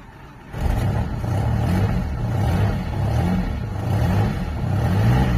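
Audi petrol engine running after its no-spark ignition fault was fixed. It comes in loud about half a second in and runs unevenly, its revs wavering up and down.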